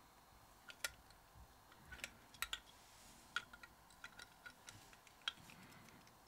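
Scattered small clicks and light taps from handling a condenser microphone's circuit board and metal mesh body while fitting them back together.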